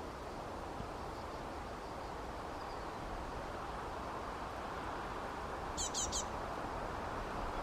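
A small bird gives three quick, high chirps, each sliding downward, about six seconds in. Under it is a steady rushing background noise.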